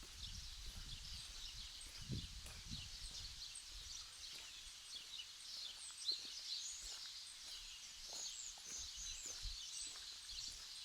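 Small birds chirping and twittering continuously, with soft irregular footsteps on sand underneath.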